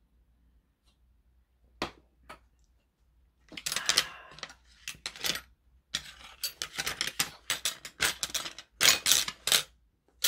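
Hard shellfish shells clinking and clattering against one another and a ceramic plate as they are picked through by hand, in quick irregular runs from about three and a half seconds in, after two light knocks about two seconds in.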